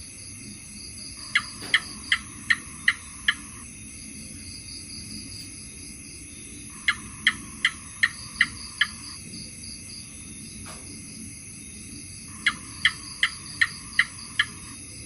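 House gecko calling: three runs of six sharp chirps, about two and a half a second, over a steady background of chirring crickets.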